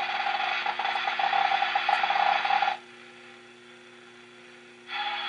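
Philco 39-30 tube radio receiving a shortwave digital data signal: a choppy, chattering tone over static that cuts out about halfway through, leaving only a low hum and hiss, then comes back near the end.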